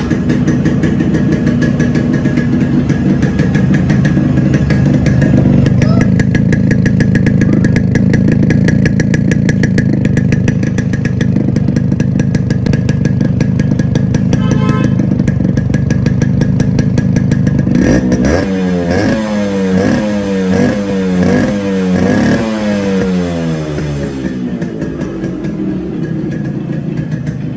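Yamaha RX100's single-cylinder two-stroke engine running through its original stock silencer. It idles steadily, then about two-thirds of the way in it is revved in a quick series of throttle blips, each rising and falling in pitch, before settling back to idle.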